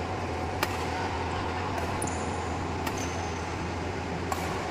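Badminton rackets striking a shuttlecock in a doubles rally: about four sharp hits roughly a second apart, over a steady low hum.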